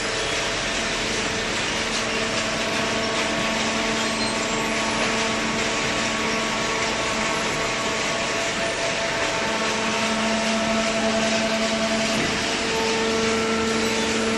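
Cardboard baler machine running: steady mechanical noise with a held hum whose pitch shifts now and then.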